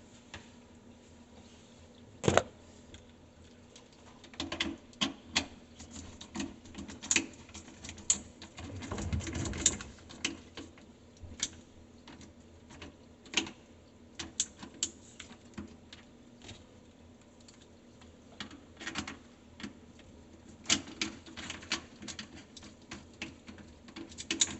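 Irregular clicks and light knocks of a hand tool working as screws are tightened on a garbage disposal mount, with a short rustling scrape about eight to ten seconds in.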